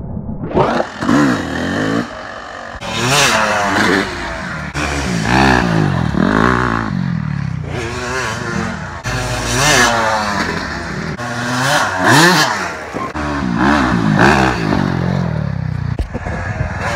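Dirt bike engine revving up and falling back over and over while the bike is ridden. Its pitch sweeps up and down many times.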